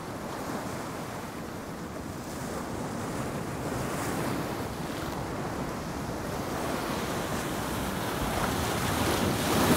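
Small waves washing and splashing against the rocks of a jetty, with wind buffeting the microphone; the wash swells a little louder toward the end.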